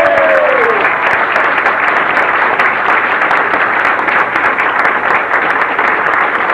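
Audience applauding, dense and steady, as a pageant winner is announced. A long cheer falling in pitch dies away in the first second.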